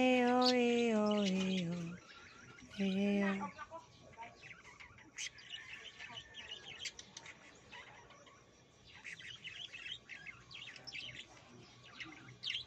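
A person's voice making long, drawn-out cooing sounds, one held for about two seconds, then a shorter one. For the rest, small birds chirp off and on, more quietly.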